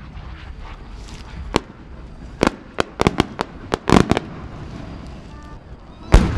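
Fireworks aerial shells bursting. There is a sharp bang about one and a half seconds in, then a quick run of about ten cracks over the next two seconds, and a louder boom near the end.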